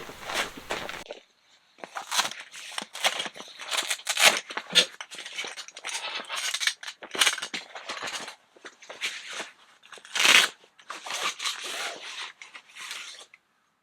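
Irregular crunching, crinkling and rustling handling noises, in quick uneven bursts with short gaps, the loudest a little past halfway and again about three quarters through.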